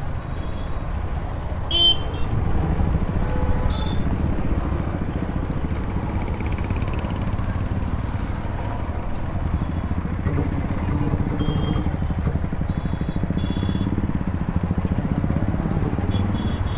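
Motorcycle engine running steadily at low speed while riding through a traffic jam, with a few short horn beeps from other vehicles.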